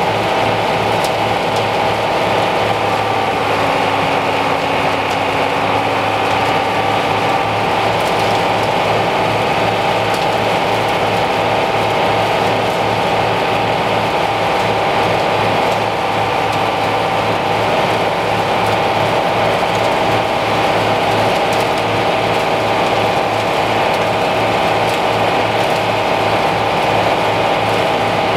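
International 56 silo blower running steadily as chopped soybean straw is fed in and blown into the barn, with a rushing hiss. Under it is the even pulse of the tractor engines: the International 826 driving the blower by PTO and the Farmall M running the forage box unloader.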